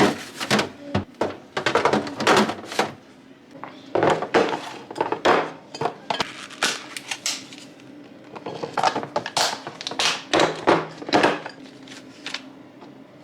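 Groceries being put away in a fridge: packages and plastic containers set down, knocked and shuffled on the shelves, in quick runs of knocks and clatters with short pauses between, easing off near the end.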